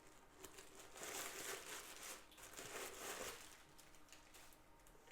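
Faint rustling and crinkling as a handbag is handled and opened to show its interior, in several soft bursts through the first two-thirds.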